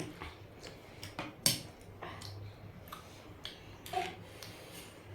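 Scattered short clicks and taps of eating and handling things at the table, the loudest about one and a half seconds in, with a brief vocal sound near four seconds.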